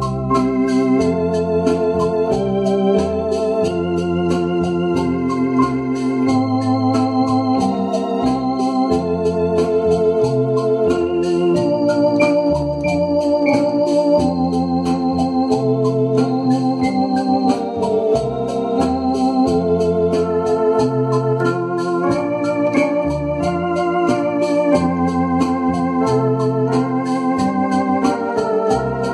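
Two-manual electronic home organ playing a hymn tune in sustained chords over a bass line that changes note about every second.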